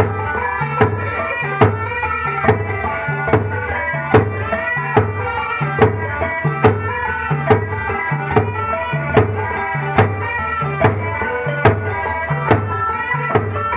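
Traditional music accompanying a dance: a melody over a repeating low drum pattern, with a sharp percussive stroke a little more than once a second.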